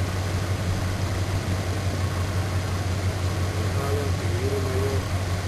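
A steady low machine hum runs throughout with no bangs. A faint wavering voice-like sound comes in about four seconds in.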